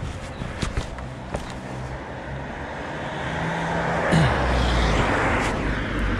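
Mountain bike riding along a city street: a few rattling clicks from the bike near the start, then wind and tyre rush swelling as speed builds, with a car passing about four seconds in.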